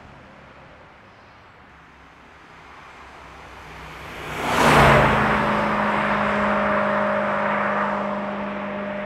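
BMW E92 M3's S65 V8 through an M Performance exhaust, driving past: faint at first, growing to a loud pass about four and a half seconds in. It then holds a steady engine note that slowly fades as the car pulls away.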